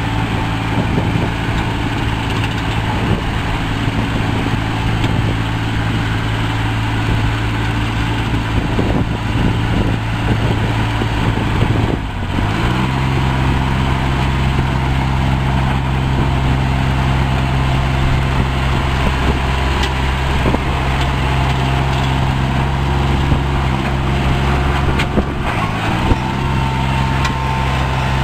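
Engine of a Komatsu rubber-track dump carrier running steadily as the machine drives. Its note shifts about halfway through, then holds steady again.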